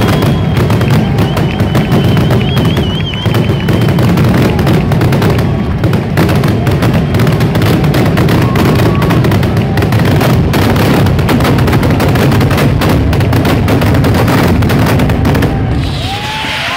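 Daytime pyrotechnic traca (mascletà-style firecracker barrage): a dense, continuous rattle of firecracker bangs over heavy low booming. A high, partly wavering whistle sounds over it for the first few seconds, and falling whistles from whistling fireworks start near the end.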